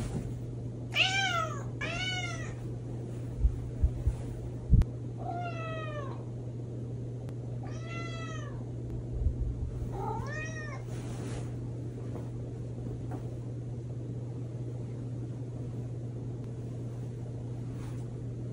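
A cat meowing five times to wake its sleeping owner, each meow rising then falling in pitch. A few soft thumps about four seconds in, over a steady low hum.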